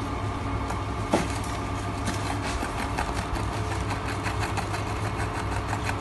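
A steady mechanical hum, like a small motor or fan running, with many short sharp ticks and clicks over it.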